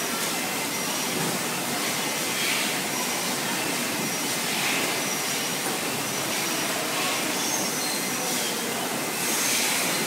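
Steady din of a busy factory floor, with machinery and fans running, and occasional brief, faint high clinks over it.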